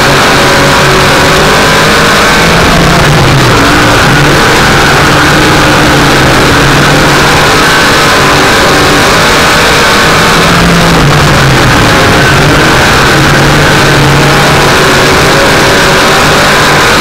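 Vehicle engine running hard under load, very loud and distorted on an onboard microphone. The revs sag twice, about three seconds in and again past ten seconds, then pick back up.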